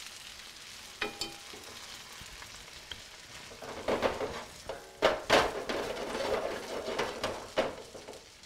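Egg-battered chicken cutlets sizzling in olive oil in a skillet. From about four seconds in the sizzle swells louder and uneven, with a few sharp knocks as the pan is tilted and shifted on the gas burner grate.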